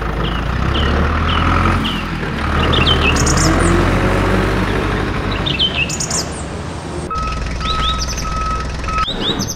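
Low, steady vehicle engine noise as the toy tractor pulls its trolley, with short bird chirps throughout and three steady beeps about seven seconds in.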